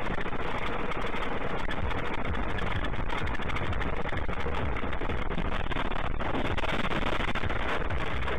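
Steady road noise inside a moving car picked up by a dashcam microphone: tyre and engine sound on a slushy road, an even hiss and rumble.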